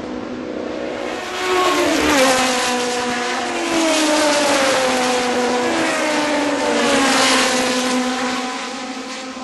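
Race cars passing at speed, several engines sounding together with their pitch falling as each goes by. Loudest from about a second and a half in until near the end, then fading away.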